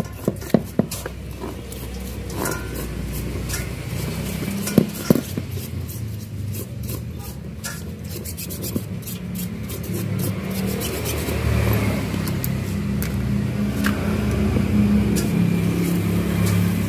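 Stiff paintbrush scrubbing a car's CV joint and drive shaft in a metal basin of diesel, scratching and sloshing, with sharp knocks of the metal joint against the basin near the start and about five seconds in. A steady engine hum runs underneath and grows louder from about ten seconds in.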